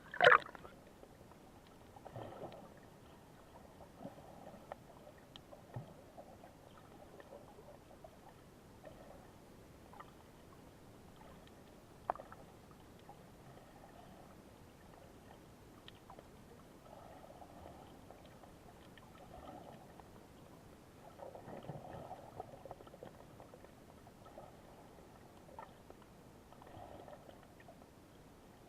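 Aegean seawater lapping softly in small waves that swell and fade every few seconds, with a few faint clicks.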